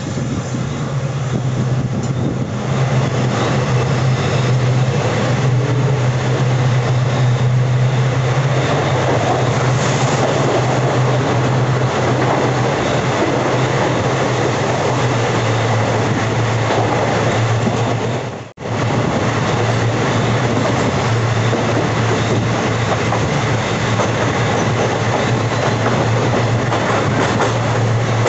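Passenger train running along the track: a steady rumble of wheels on rail with a constant low hum. The sound drops out for an instant about two-thirds of the way through.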